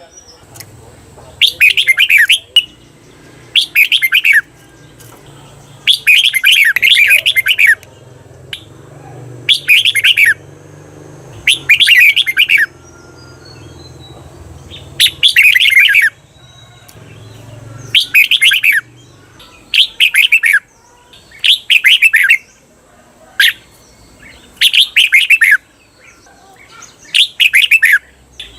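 Red-whiskered bulbul singing: loud, short, chirpy song phrases repeated about every two seconds, the 'doubled' song used to train caged bulbuls. A faint low hum sits underneath.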